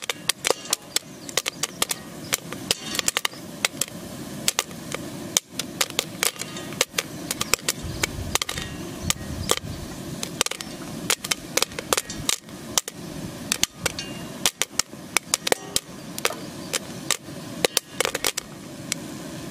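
Popcorn kernels popping in a hot metal pan: sharp, irregular pops, several a second, over a steady hiss.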